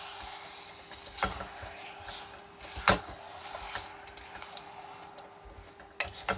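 Kitchen handling noises: two sharp knocks about a second and three seconds in, scattered light clicks and rustling, over a faint steady hum.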